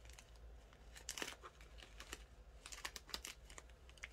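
Faint crinkling and light crackling of a small plastic zip bag of diamond-painting drills being handled, with clusters of crackles about a second in and again around three seconds.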